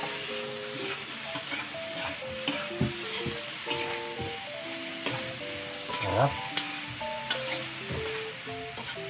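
Strips of jicama, carrot and green beans sizzling as they are stir-fried in a metal wok, a metal spatula scraping and knocking against the pan again and again.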